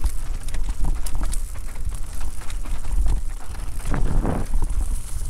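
Electric mountain bike clattering over a rough enduro trail at speed, with rapid irregular knocks and rattles from the frame, chain and wheels over rocks and roots, and a louder rough patch about four seconds in. A steady low wind rumble sits on the camera microphone throughout.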